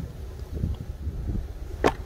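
A split firewood log set down onto a stack of logs, giving one sharp wooden knock near the end, over a steady low rumble.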